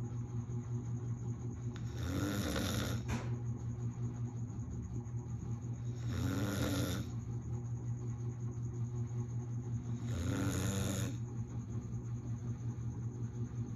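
Snoring: a steady low fluttering drone, broken by a louder rasping snore about every four seconds, three times in all.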